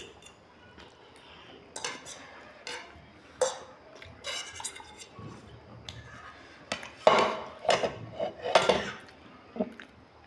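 Metal forks and spoons clinking and scraping on ceramic plates while noodles are eaten: scattered short clinks, with a quicker cluster of louder ones about seven to nine seconds in.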